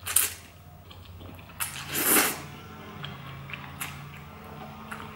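A person slurping glass noodles off chopsticks: a short slurp at the start and a longer, louder one about two seconds in, then small wet mouth clicks while chewing.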